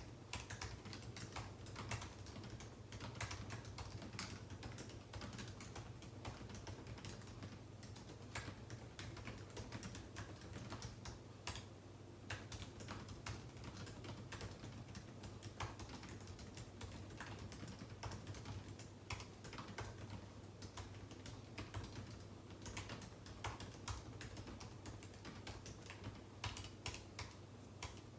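Typing on a computer keyboard: a continuous, irregular run of key clicks, with a low steady hum underneath.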